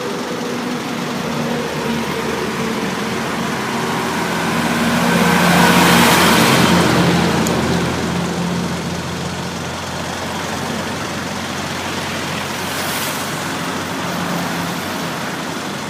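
Motor vehicle engines and road traffic running steadily, swelling louder and fading again about six seconds in.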